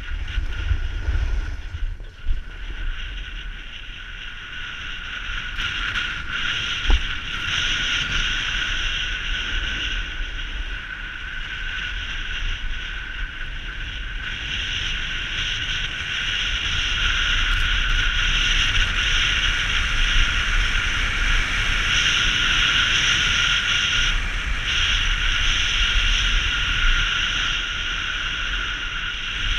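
Sliding down a groomed ski run, heard through a GoPro in its housing: a steady rushing hiss of snow under the rider with wind buffeting the camera microphone, swelling as speed builds. A single sharp knock about seven seconds in.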